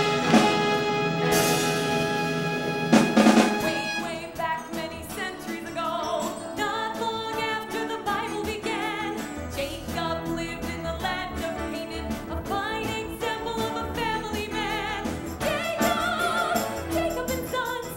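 A show tune from a live musical: the orchestra plays two loud chords in the first few seconds, then a woman sings over the band accompaniment.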